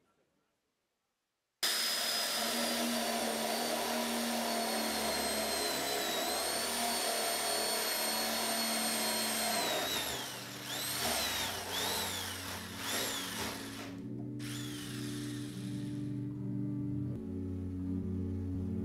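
A power tool starts suddenly, after a moment of silence, and runs with a steady high whine. About ten seconds in it is revved in repeated short rise-and-fall bursts, then stops. Low sustained music notes come in near the end.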